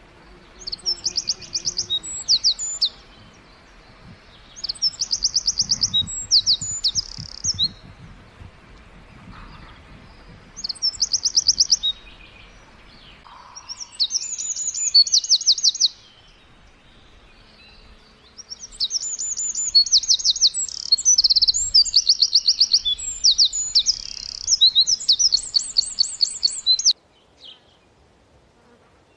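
Eurasian wren singing: loud, high, rapid trilling phrases a couple of seconds long, separated by pauses of a second or two, the last and longest running about eight seconds before stopping abruptly.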